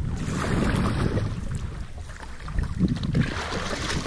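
Double-bladed paddle strokes swishing and splashing in lake water beside an inflatable packraft, swelling twice, with wind buffeting the microphone.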